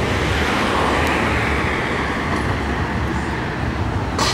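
Road traffic: a vehicle passing, its noise swelling and then fading over a couple of seconds, over a steady low rumble.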